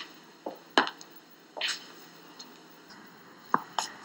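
A few scattered footsteps, with a short hiss about one and a half seconds in.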